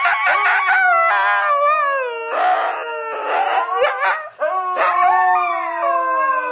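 A husky howling: long wailing howls that slide slowly up and down in pitch, with a short break a little past four seconds in.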